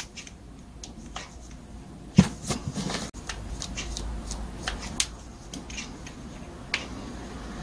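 Screwdriver clicking and scraping against a small brush-cutter carburetor while it is being taken apart, with scattered light metal clicks and a sharper knock about two seconds in.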